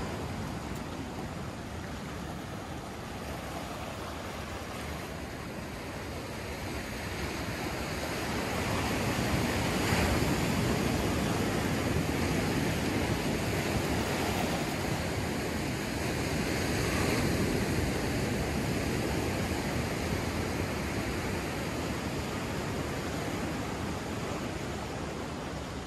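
Ocean surf breaking and washing up on a sand beach, a steady rush that swells louder about a third of the way in and again a little past halfway.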